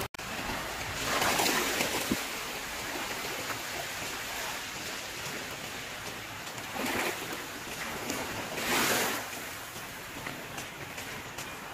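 Small waves washing onto a sandy beach: a steady rush of surf with louder washes about a second in, near seven seconds and near nine seconds.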